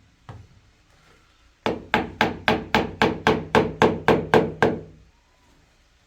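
A single knock, then a quick run of about a dozen sharp hammer-like blows, about four a second, each with a short ring, stopping abruptly.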